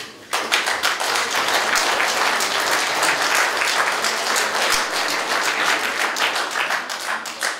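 Audience applauding, many hands clapping at once; it starts a moment in and stops abruptly at the end.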